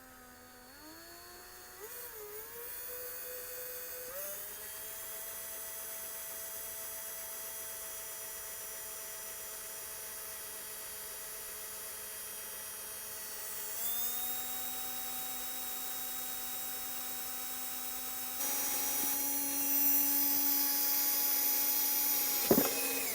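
Electric drill with an 8 mm wood bit running, boring holes into the corners of a wooden board. Its motor whine steps up in pitch over the first few seconds and holds steady, shifts pitch about two-thirds of the way through, then grows louder before cutting off near the end.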